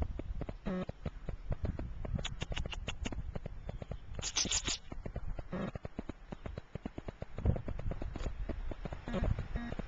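Footsteps crunching through deep snow, a quick, uneven run of crunches.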